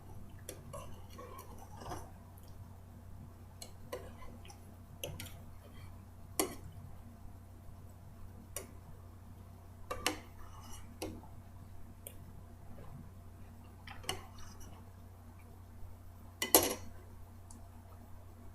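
Spoon clinking and tapping against a cereal bowl every second or two while the last of a bowl of cereal is eaten, with one louder clink near the end.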